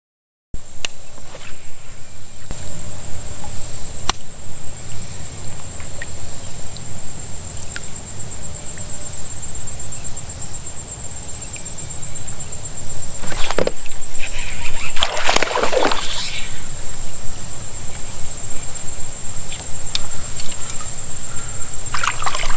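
Water sloshing and splashing around a fishing kayak over a steady low rumble. There are a few louder splashes about halfway through and again near the end.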